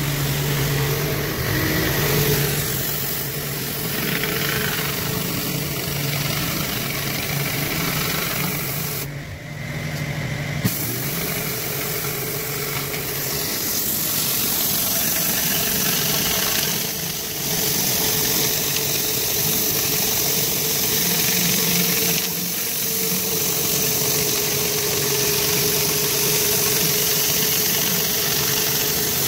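Pressure washer engine running steadily under the hiss of water spraying from a flat surface cleaner on concrete, dipping briefly a couple of times.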